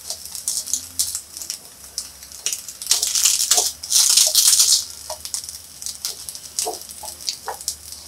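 Indian borage (doddapatre) leaves sizzling and crackling on a hot tawa as the water on them cooks off, with a louder stretch of hissing about three to five seconds in. A few light taps come as the leaves are turned by hand.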